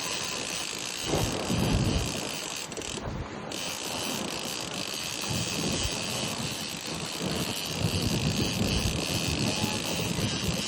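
A boat engine running steadily, with wind buffeting the microphone in irregular low gusts.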